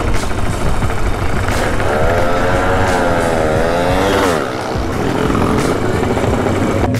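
Motorcycle engine running. Its pitch climbs and wavers as it revs from about two seconds in, then drops sharply at about four and a half seconds.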